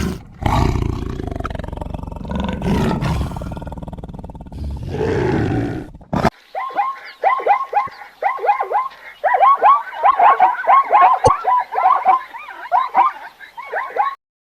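A low, rough animal roar or growl for about six seconds, then, after a cut, a rapid run of short, repeated chirping calls from an animal, several a second.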